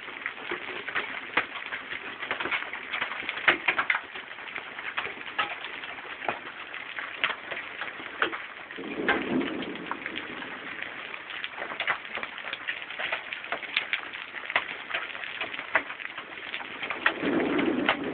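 Hail and rain coming down on the ground and roof: a steady patter dense with sharp clicks of hailstones striking. A lower sound swells briefly twice, about halfway through and near the end.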